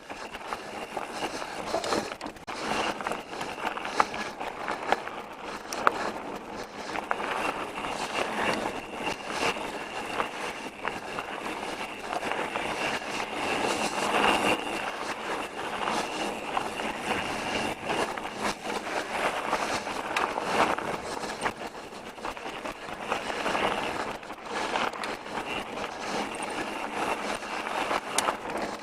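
Pivot Switchblade mountain bike riding fast down a dirt trail: a steady rush of tyres over dirt and rocks, with frequent sharp clicks and rattles from the bike as it bounces over the ground.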